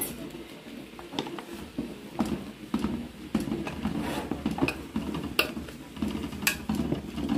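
Wooden spoon stirring wheat flour into boiling broth in a large aluminium pot, knocking and scraping against the pot at irregular intervals as the coxinha dough starts to form.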